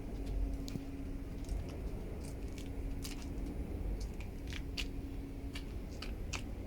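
Steady low mechanical rumble with a faint on-and-off hum, and scattered sharp clicks and ticks at irregular intervals.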